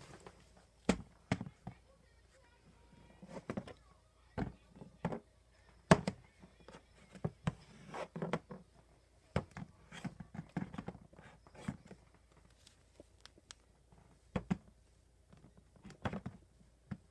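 Scattered soft thuds and clicks at irregular intervals, sometimes several a second: handling bumps of a handheld camera being moved about.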